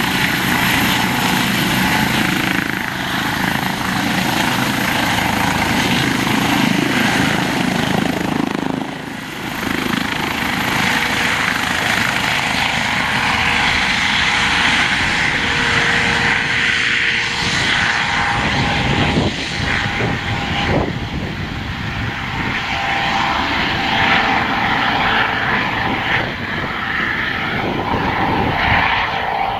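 Eurocopter EC135 P2 air-ambulance helicopter lifting off and flying away, its rotor and twin turbines running loud and steady. The level dips briefly about a third of the way in.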